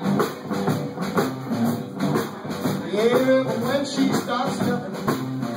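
Live blues band playing: electric guitar, electric bass and drum kit.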